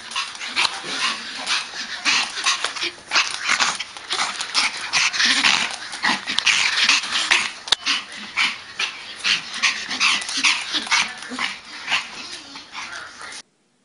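Small dog making a rapid, rough run of short vocal sounds right at the microphone, which cuts off suddenly near the end.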